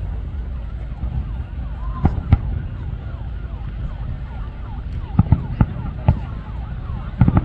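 Aerial fireworks shells bursting: two sharp bangs about two seconds in, then a run of bangs from about five seconds on that comes faster near the end. A siren wails faintly in the background through the first half.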